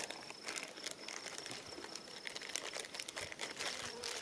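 Faint scattered clicks and rustles of a .50-calibre black-powder rifle being handled and settled onto its bipod on a shooting bench as the shooter gets into aim. A thin, steady high-pitched tone runs underneath.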